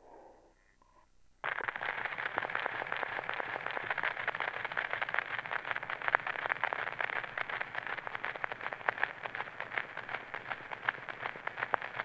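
Surface noise of an old, abused, out-of-round cylinder record on an Archivette cylinder player: a steady hiss thick with crackles and clicks that cuts in suddenly about a second and a half in as playback starts, ahead of the recorded music.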